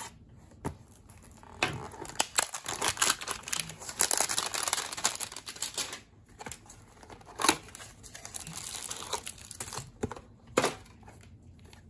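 Cardboard baseball-card hanger box being torn open by hand, with crackly crinkling of the packaging and a few sharp snaps of the cardboard.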